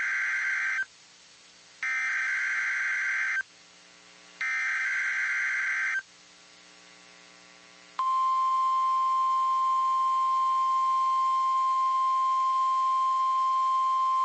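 NOAA Weather Radio emergency alert: three bursts of the SAME digital header, a raspy electronic screech about a second and a half each with short gaps between, the first already under way. About eight seconds in, the steady single-pitch 1050 Hz Weather Radio warning alarm tone begins and holds.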